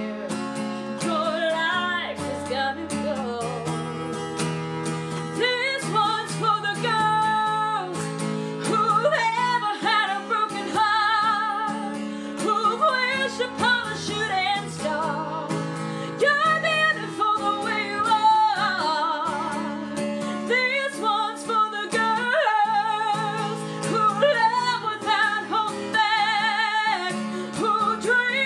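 A woman singing a country song, with vibrato on held notes, while strumming an acoustic guitar.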